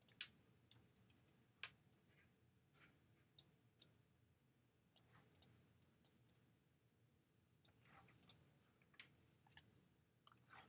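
Faint computer mouse clicks, irregular and scattered, a few a second with a short lull past the middle.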